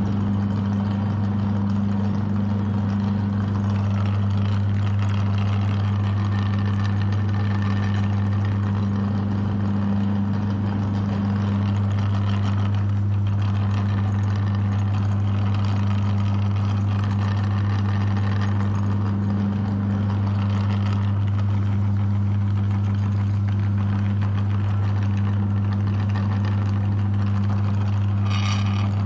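Electric meat grinder's motor running steadily with a strong low hum.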